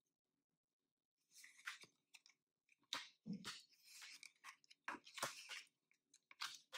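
Tarot cards being dealt one at a time from the deck onto a table: a series of faint snaps and brief swishes as each card is slid off and laid down.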